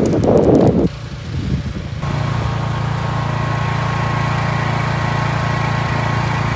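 An engine idling steadily, an even hum that comes in about two seconds in, after a short loud burst of rough noise in the first second.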